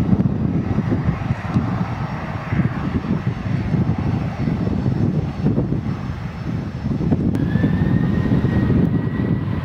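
Boeing 737-800's CFM56 jet engines running as the airliner rolls along the runway, a loud uneven rumble. About seven seconds in, a high engine whine comes in, rising briefly and then holding steady.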